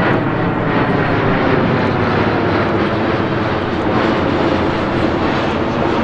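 US Navy P-8 Poseidon's twin CFM56 turbofan engines, loud and steady as the jet passes low overhead.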